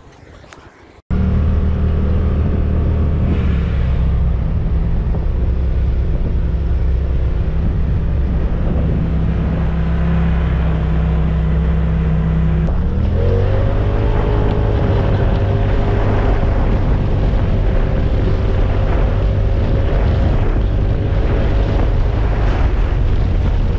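Polaris RZR XP Turbo side-by-side driving on a dirt trail, heard from on board: a loud steady engine drone with wind and road noise, starting suddenly about a second in and stepping up in pitch about halfway through as it speeds up.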